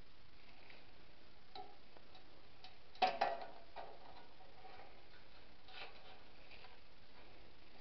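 Light clicks and knocks from handling a 1/14-scale all-metal RC trommel model, with a short cluster of louder clicks about three seconds in and a few faint ticks around it.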